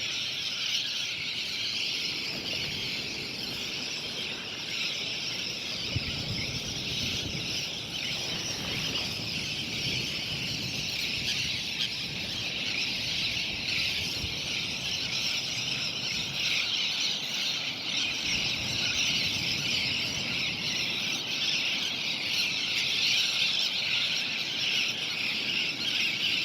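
A flock of laughing gulls calling continuously, making a dense, steady high chorus, with a low rushing noise underneath.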